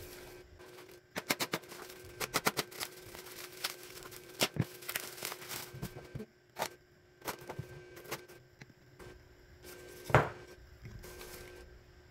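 Unboxing handling noises: black plastic bubble wrap crinkling in a quick run of crackles as a ceramic plate is pulled from it. Then a small cardboard box is handled and opened, with scattered knocks and scrapes; the loudest is a single sharp knock about ten seconds in.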